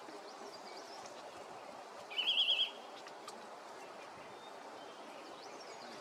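Chestnut-bellied nuthatch giving one short, rapid, wavering high trill about two seconds in, over a steady background hiss with a few faint thin bird notes.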